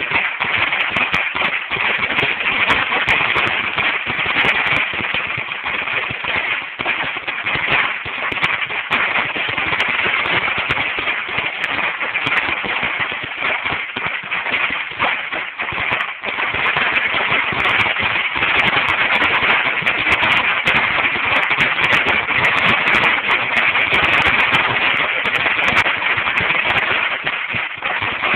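A Dominator 16,000-count firecracker strip going off: an unbroken, rapid rattle of small bangs, too many to count.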